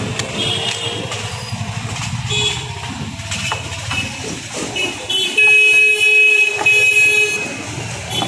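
Road traffic running steadily. More than halfway in, a vehicle horn sounds loudly for about two seconds, in two blasts with a brief break between them.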